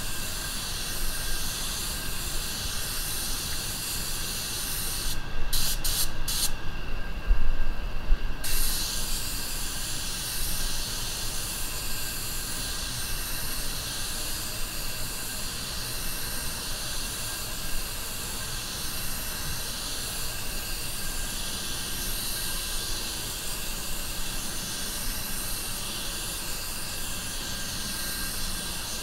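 Anest Iwata WS400 Supernova 1.3 spray gun hissing as it sprays a coat of clear. The spray cuts out in a few short gaps about five seconds in, then pauses for about two seconds before it carries on steadily.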